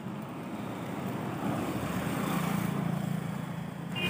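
Road traffic: a motor vehicle's engine hum and tyre noise growing louder as it approaches along the road.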